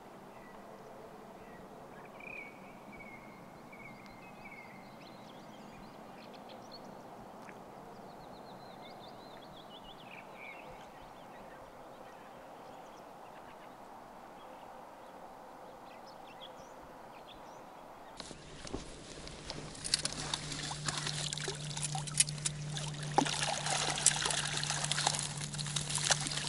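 Quiet lakeside ambience with a few faint bird calls. About 18 s in, close water splashing and dripping as a keepnet full of small fish is lifted out of the water, with a steady low hum underneath.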